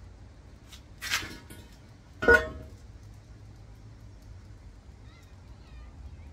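Two clanks of metal transmission parts being handled, about a second apart; the second is louder and rings briefly.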